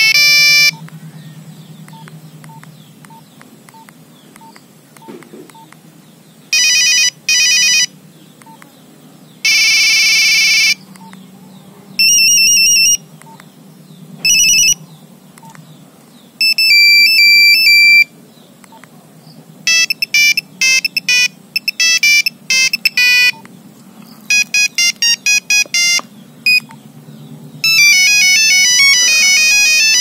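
Nokia 3350 ringtones playing as previews one after another while the tone list is scrolled. Each is a short beeping monophonic melody lasting a second or two, with pauses between, and faint short beeps in the gaps.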